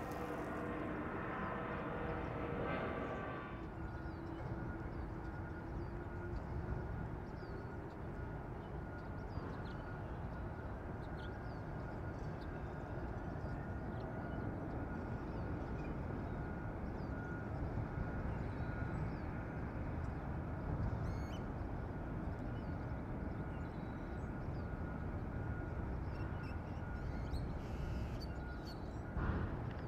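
Distant jet engines of a McDonnell Douglas trijet cargo plane: a whine that fades out about three and a half seconds in, then a steady low rumble with a thin high tone above it, as the plane heads into its takeoff roll.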